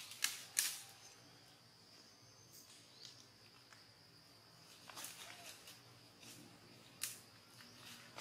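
Faint outdoor ambience: a steady high-pitched insect drone, with several sharp clicks or snaps scattered through it, the loudest just after the start and about seven seconds in.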